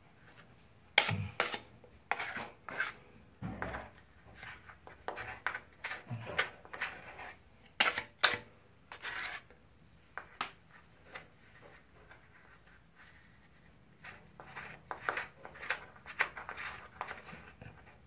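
Putty knife scraping and smearing joint compound into the corner joint of a gypsum cornice, in short irregular strokes, with a pause of a few seconds after the middle.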